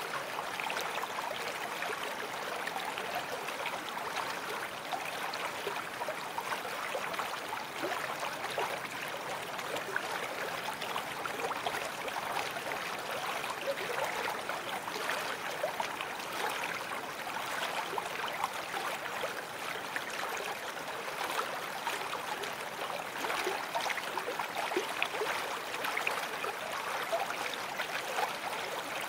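Babbling brook: running water flowing steadily, an even rush flecked with small splashes.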